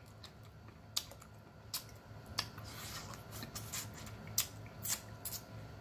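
Close-miked mouth sounds of eating boiled crawfish: irregular sharp clicks of lip smacking and chewing, with a brief sucking hiss about halfway through.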